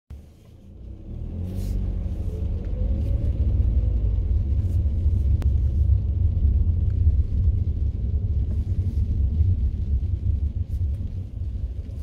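Low rumble of a car driving slowly over a dirt lot, heard from inside the cabin. The engine note rises as it pulls away in the first few seconds, then evens out, with scattered small clicks from the tyres.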